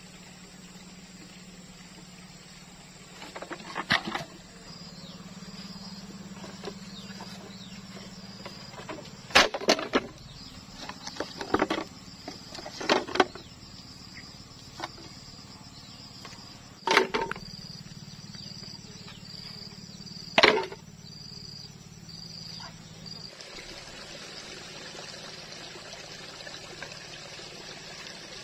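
Bamboo poles and stones knocking and clattering as they are handled and set down: a series of sharp knocks, some in quick clusters, ending about two-thirds of the way through. An insect chirps in short, even pulses in the background.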